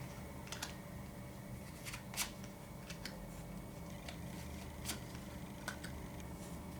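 Oracle cards being shuffled and drawn: faint rustling with a few scattered short clicks and snaps, over a steady low room hum.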